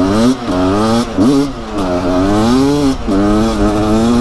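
Beta RR300's 300 cc two-stroke single-cylinder engine accelerating hard, its pitch climbing and dropping back sharply several times, then holding steady near the end. Wind rumbles on the helmet-camera microphone underneath.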